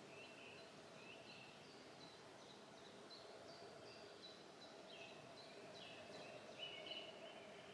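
Faint birdsong in a quiet garden: a small bird repeating short high chirping notes, a few a second, with somewhat longer notes near the end, over a low steady background hum.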